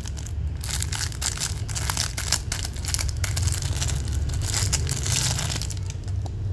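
Packaging crinkling and rustling in rapid, irregular crackles as a boxed Zippo lighter is handled, over a steady low hum.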